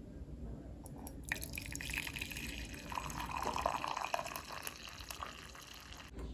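Hot coffee poured from a pot into a ceramic mug: a steady splashing stream that starts about a second in and tails off just before the end.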